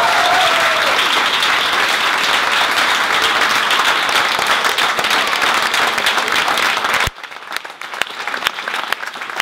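Audience applauding, dense and loud, then after an abrupt cut about seven seconds in, quieter clapping with separate claps standing out.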